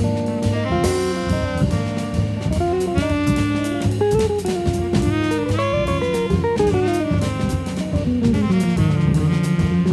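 Jazz quartet recording: a saxophone plays a winding melody over drum kit and bass.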